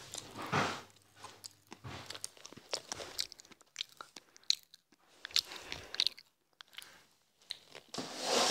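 Popping candy crackling in the mouth: irregular small sharp pops and crackles, scattered and uneven.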